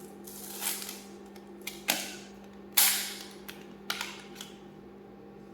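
Laptop being handled for a RAM upgrade: several sharp plastic clicks and knocks, the loudest about three seconds in, over a faint steady hum.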